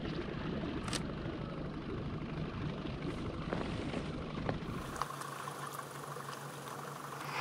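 Boat engine running steadily with a low rumble. About five seconds in, the deepest part of the rumble drops out and a steady hum remains.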